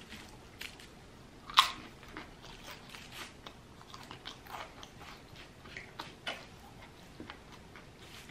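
Close-up mouth sounds of a man chewing a soft sub sandwich: wet smacks and small clicks, with one sharper crackle about a second and a half in.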